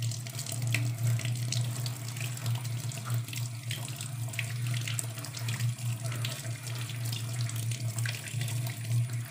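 Water running from a tap into a sink, splashing over slime as it is rinsed under the stream, with many small splashes and drips over the steady flow.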